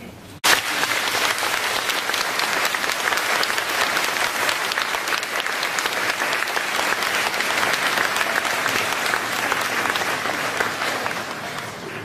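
Congregation applauding, starting suddenly about half a second in and dying down near the end.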